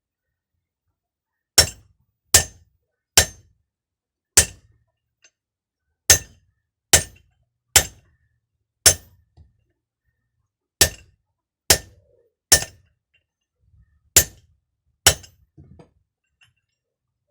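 Hammer blows on metal: thirteen sharp, ringing strikes at an uneven pace of roughly one a second.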